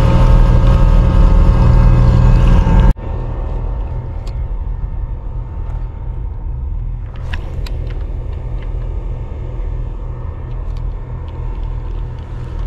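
Boat engine running: a loud, steady drone for about three seconds, then a sudden drop to a quieter, evenly pulsing low engine rumble. A few sharp clicks come about seven seconds in.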